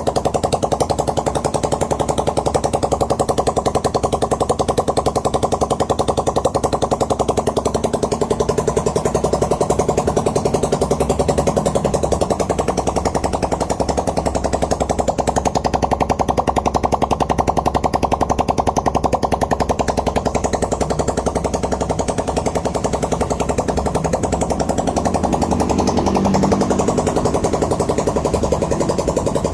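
Suzuki Raider 150 Fi single-cylinder engine, fitted with a 62 mm CNC cylinder block on the stock piston, running steadily with a rapid, even pulse.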